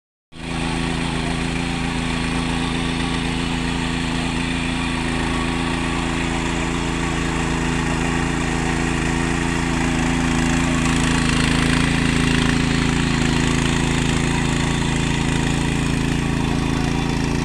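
Walk-behind power weeder's small engine running steadily as it tills a muddy, flooded paddy field.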